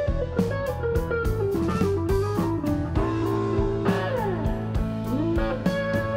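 Background music: a guitar melody with sliding notes over a steady bass line and drums.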